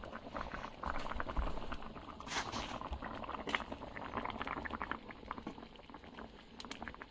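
Water from an electric pressure washer spattering and pattering against wood, a dense crackle of droplets with a couple of brief brighter bursts of spray.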